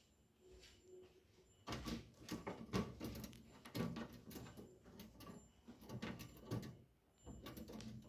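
A ring-necked parakeet scrambling about its wire cage, its feet and beak clattering on the metal mesh in irregular bursts of knocks and rattles from about two seconds in until near the end.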